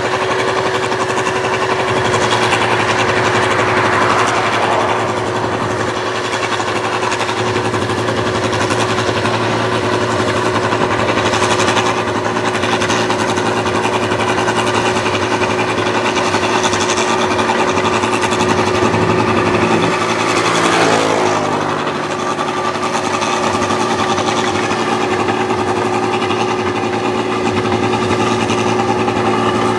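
1545 S rice combine harvester running while harvesting, its engine and threshing machinery making a loud steady hum with one constant tone. About twenty seconds in, the pitch slides down briefly before it settles again.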